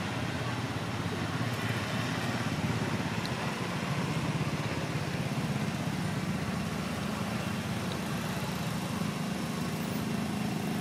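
Steady low drone of a motor vehicle engine running, unchanging in level.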